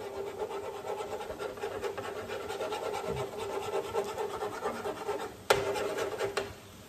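Egg frying in a skillet with shrimp and sauce while a spatula scrapes and pushes it around, over a steady tone. It gets louder about five and a half seconds in, then stops suddenly just before the end.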